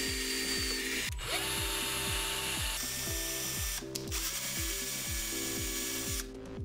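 Electric drill motor running while boring a small hole in a piece of aluminum, with breaks where the shots change; it drops away near the end. Background music with a steady beat runs underneath.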